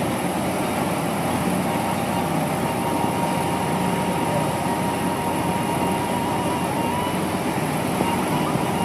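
A heavy diesel engine of road concrete-pouring machinery running steadily, with a faint steady whine over the engine noise.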